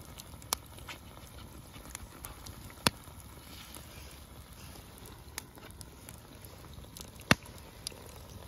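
Coals of a cooking fire crackling: a low steady hiss with five or so sharp, irregular pops, the loudest about three seconds in and again near the end.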